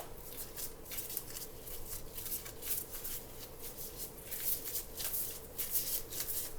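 Homemade glue slime being kneaded and stretched in gloved hands, giving soft, irregular sticky clicks and rustles.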